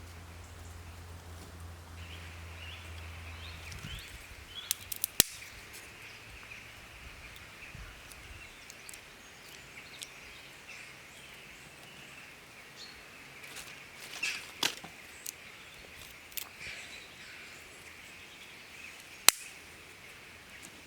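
Campfire crackling: wood burning with scattered sharp pops, the loudest about five seconds in and near the end, over a steady high hiss. A low hum fades out in the first few seconds.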